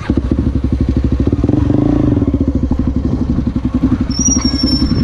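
Honda XR250 Tornado's single-cylinder four-stroke engine running with a steady pulsing beat, its pitch rising briefly about a second and a half in. A thin high whistle comes in near the end.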